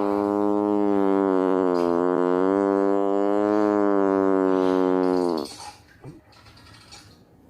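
A long, drawn-out fart noise, buzzing at one steady pitch with slight wavers, that stops abruptly about five and a half seconds in.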